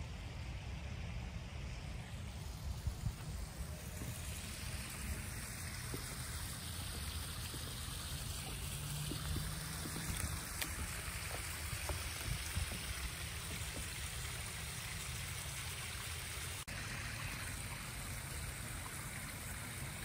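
Water trickling and running steadily in a backyard koi pond, over a low uneven rumble.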